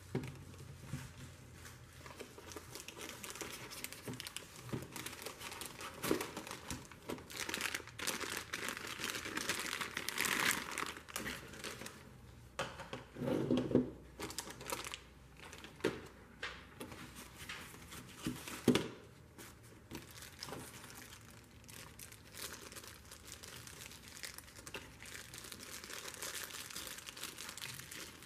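Crinkling, rustling hand work on small ratchet parts during cleaning, busiest about a third of the way in, with scattered light clicks, a short burst of rubbing around the middle and one sharp knock a little later.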